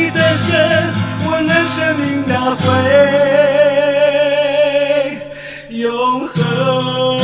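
Music: a Chinese worship song with guitar accompaniment and a singing voice, holding one long note with vibrato midway before dropping out briefly and coming back in.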